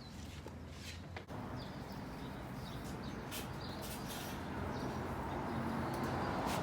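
A steady low hum and rushing background noise that slowly grows louder, with faint bird chirps and a couple of sharp clicks.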